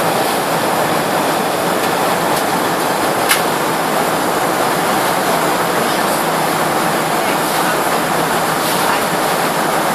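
Steady rushing noise of an airliner cabin, an even roar of engines and airflow, with a faint click about three seconds in.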